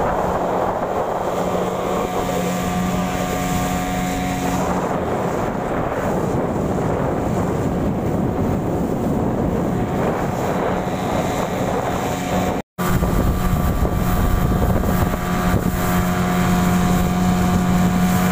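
Small motorboat's engine running steadily at cruising speed, with wind buffeting the microphone. The sound drops out for a split second about two-thirds of the way through, then the engine carries on.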